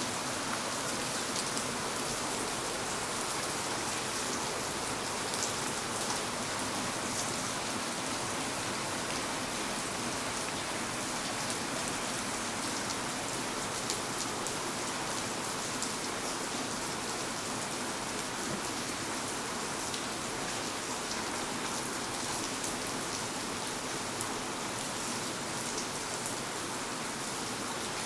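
Steady rain falling on hard surfaces, an even hiss with many small drops pattering.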